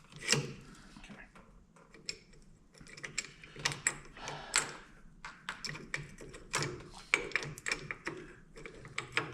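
Irregular sharp metallic clicks and taps of hand tools working on a two-jaw puller setup, as one part is loosened slightly. The clicks come more often after the first few seconds.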